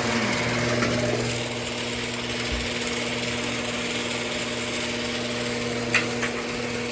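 A steady low mechanical hum, with a short click about six seconds in.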